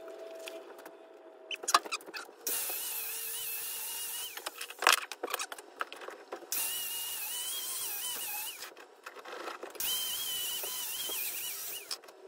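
Angle grinder sharpening a single-bit axe head clamped in a bench vise. It runs in three bursts of about two seconds each, with a wavering whine, and there are a couple of sharp metal clanks between the bursts.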